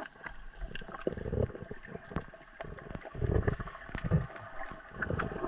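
Muffled underwater noise: low swishing rumbles of water stirred by a gloved hand digging through silt and rocks on the seabed, strongest about one, three and four seconds in, with scattered small clicks of stones.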